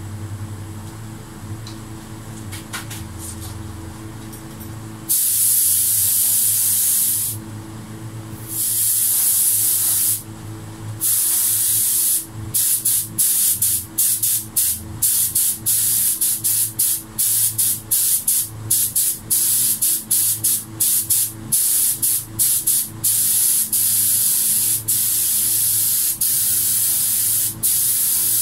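Air-powered gravity-feed spray gun hissing as it lays on a clear topcoat. After about five seconds of quiet come two longer passes of a couple of seconds each, then a quick run of short trigger bursts, about two a second.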